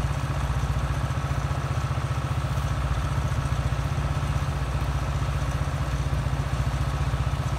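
International 856 tractor engine idling steadily with an even low throb.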